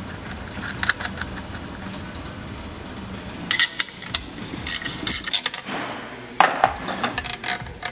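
Scattered sharp metallic clicks and clinks as battery cables and terminal hardware are fitted onto golf-cart battery posts, coming in clusters and busiest in the second half.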